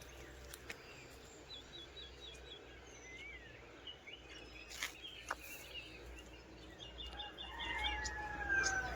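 Several birds chirping outdoors. One repeats a quick run of high notes twice, and near the end comes a longer falling whistle. A few faint clicks and a low rumble sit underneath.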